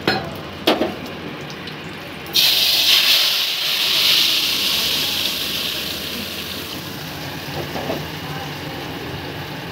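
Hot oil sizzling as food deep-fries. The sizzle starts suddenly about two seconds in and slowly dies down, after a couple of light knocks at the start.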